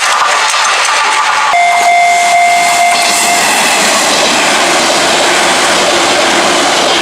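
An Izu-Hakone Railway Sunzu Line electric train running through a level crossing, its running noise building from about three seconds in and continuing steadily. The crossing's warning bell rings as a steady tone in the first half and drops out under the train noise.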